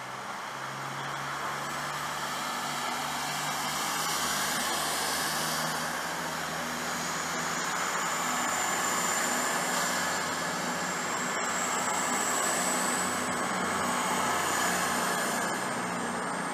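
CrossCountry Class 220 Voyager diesel multiple unit moving slowly past at close range, its underfloor diesel engines running. A thin high whine rises steadily in pitch through the second half as it pulls away.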